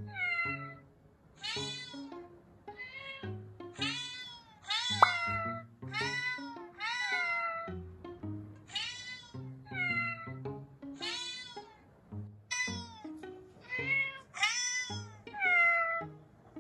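Recorded cat meows, one after another at roughly one-second intervals, each call rising and falling in pitch, over background music.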